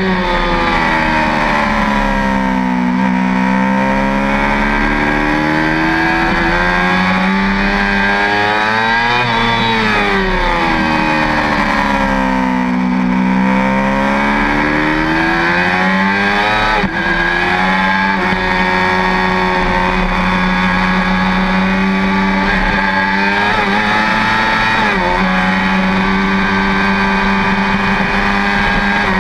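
Yamaha R6 sport bike's 600 cc inline-four engine at track pace, heard from on board. Its pitch falls and rises twice as the bike slows and picks up speed again, then holds steady through the second half, over wind noise.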